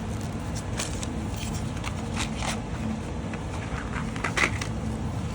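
Small clicks and handling noises of a set of nail art pens being opened, coming at irregular moments with the strongest about four and a half seconds in, over a steady low background hum.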